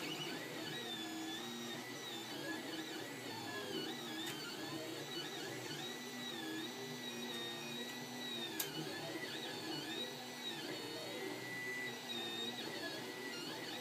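Solidoodle 3D printer's stepper motors whining as the print head moves, their pitch sliding up and down as it changes speed and direction. A single sharp click comes about two-thirds of the way through.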